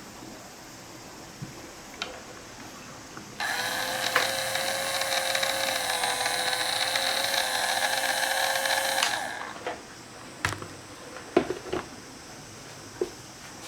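KOSHIN GT-3S battery-powered sprayer's small electric pump motor switched on about three seconds in, running with a steady whine for about six seconds, then switched off. A few light clicks and knocks follow.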